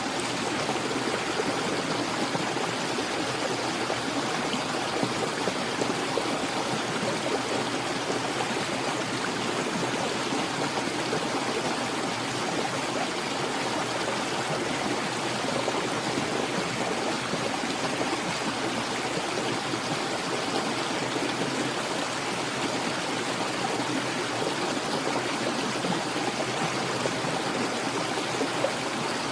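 Mountain valley stream flowing steadily, an even rush of clear running water.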